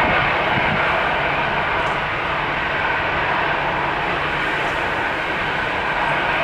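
Boeing 737-700 BBJ's twin CFM56-7B turbofan engines running steadily at low taxi power as the jet taxis, a constant jet rush without any change in thrust.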